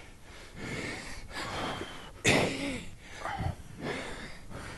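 People breathing hard through push-ups: a string of short, puffing breaths about a second apart, with a louder, sharper one a little past two seconds in.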